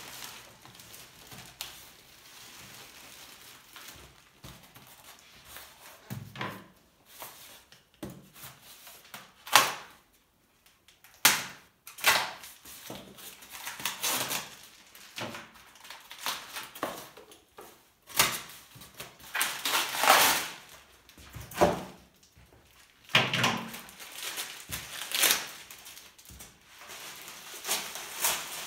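Packaging being handled during an unboxing: plastic wrapping, a plastic box and white foam packing blocks rustling, scraping and knocking in irregular bursts, with a few sharp knocks, the loudest about ten seconds in.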